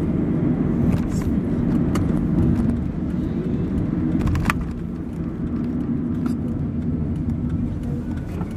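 Car interior driving noise: a steady low engine hum and tyre and road rumble as the car moves slowly through town, with a few faint clicks.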